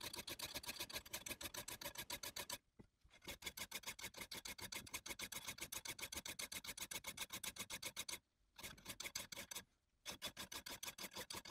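Hand file rasping over the steel head of an Estwing roofing hatchet in quick, even strokes, about five a second, faint. The strokes pause briefly about 3 s in and twice more near the end.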